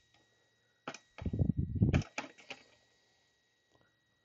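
Handling noise from a Milwaukee M18 Rocket tower light's plastic-and-metal tripod and mast as the unit is set down on its legs. There is a sharp click about a second in, then a brief heavy rubbing rattle, then a couple more clicks just after two seconds, and then it goes quiet.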